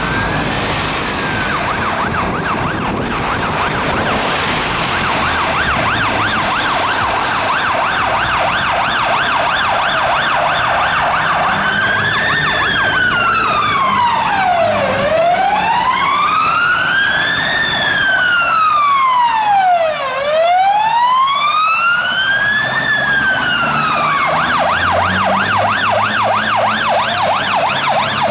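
Fire engine sirens on the yelp, a fast up-and-down sweep, switching about twelve seconds in to a slow wail that rises and falls three times, then back to the fast yelp. Near the end the fire engine's diesel engine grows louder as it passes, over tyre hiss on the wet road.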